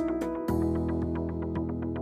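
Background music with a steady beat, about four beats a second, and sustained synthesizer notes that change about half a second in.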